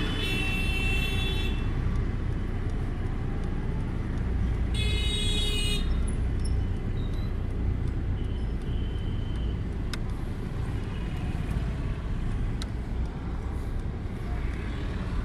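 Street traffic noise: a steady low rumble of vehicles, with two vehicle horn honks, one at the start and one about five seconds in, each lasting about a second.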